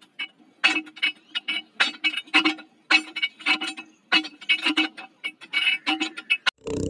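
Miniature hand water pump worked by its wire handle: a quick, uneven run of short squeaks and clicks, a few each second, one with each stroke.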